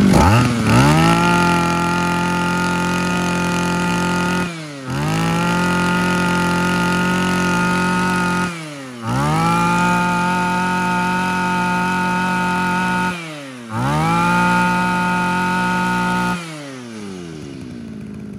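Zenoah Komatsu BC22 22cc two-stroke brush cutter engine running with a very crisp note. It revs up high four times, holding each rev for about four seconds, drops briefly to idle between them, and settles to an idle near the end.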